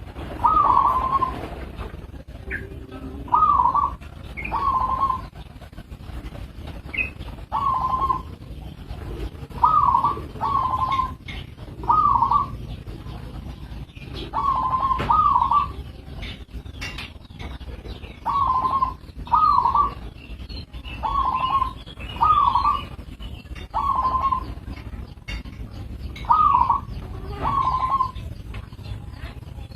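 Local zebra dove (perkutut) cooing: short, repeated coo phrases that come about every one to two seconds.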